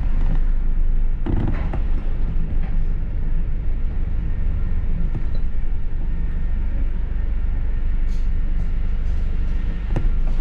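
Interior of a London double-decker bus in motion: a steady low engine and road rumble with a low hum, a brief knock about a second in and a sharp rattle-like click near the end.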